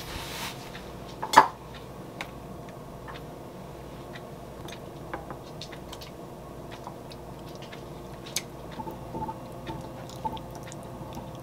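Kitchen handling sounds: a sharp clunk about a second and a half in, then scattered light clinks and taps as soup is poured from a plastic container into a ceramic bowl and stirred with a metal spoon, over a faint steady hum.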